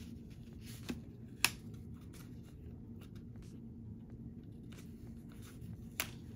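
Quiet handling of a paper sticker being peeled and pressed onto a planner page, with a few sharp clicks, the loudest about a second and a half in, over a steady low room hum.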